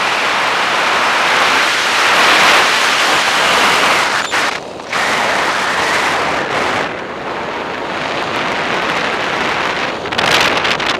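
Airflow rushing over the camera microphone during paraglider flight, a loud, steady wind noise that briefly eases about halfway through.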